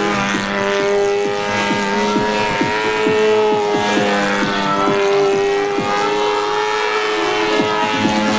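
Engine of a radio-controlled flying lawnmower model running steadily overhead, a high buzzing note whose pitch wavers a little with throttle and movement.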